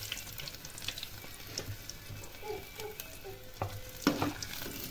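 Potato pakoras sizzling as they deep-fry in hot oil, a steady hiss broken by a few light clicks.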